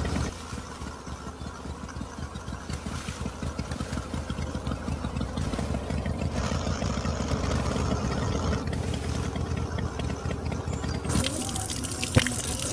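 Small motor of a miniature tractor-driven grape-juicer model running with a fast, even rattle. About eleven seconds in, a stream of grape juice starts pouring from its spout into a steel cup, with a sharp click just after.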